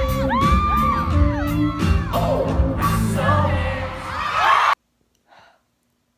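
Live pop concert heard from within the audience: a male singer's voice over the band with a steady drum beat, and fans yelling and singing along. It cuts off suddenly near the end to near silence.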